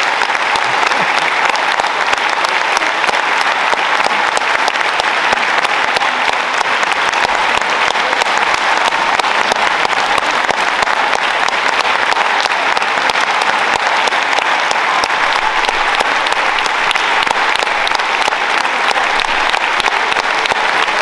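Audience applauding, dense clapping that holds steady throughout.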